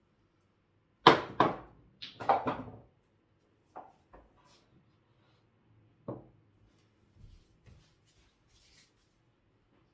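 A shot on a mini pool table: a sharp click about a second in, then a quick run of clacks over the next two seconds as the balls strike each other and the cushions. A few lighter single knocks follow, the last about six seconds in.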